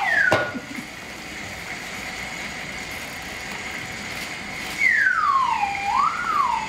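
A voice swooping down in pitch like a falling whistle, starting about five seconds in, then wobbling up and down twice as it carries on. A short falling swoop ends right at the start, and a single sharp knock comes just after it.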